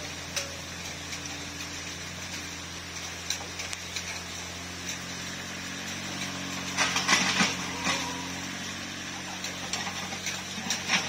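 Mini excavator's diesel engine running steadily, with scattered knocks and a louder spell of rattling and clatter about seven seconds in.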